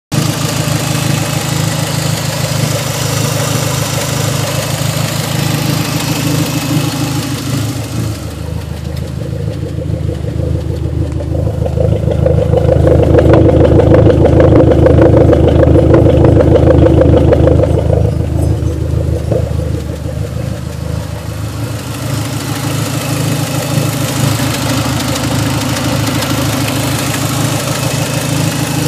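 Dodge SRT-4's turbocharged four-cylinder engine idling, with a rapid rhythmic thumping that grows loudest in the middle and then fades back. The owner calls it a weird thumping sound and does not know its cause.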